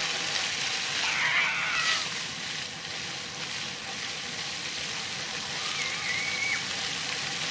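Splash-pad fountain jets spraying and falling onto wet pavement: a steady hiss. High children's voices call out briefly about a second in and again near six seconds.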